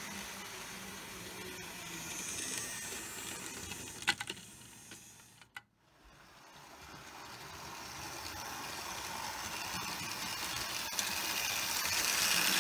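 Model trains running on track: the steady rattle and hum of small electric locomotives and coaches rolling over the rails. The sound fades, drops out briefly about halfway through, then grows louder again as the trains pass close by.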